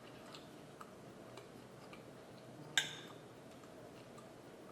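Quiet eating at a plate: faint scattered clicks, and one sharp clink of cutlery on a dish about three seconds in.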